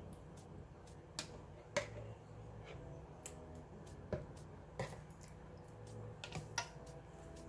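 Light, irregular clicks and taps of a spatula knocking against a mayonnaise jar and the rim of a mixing bowl while mayonnaise is scooped into potato salad, about a dozen in all, the sharpest about two seconds in.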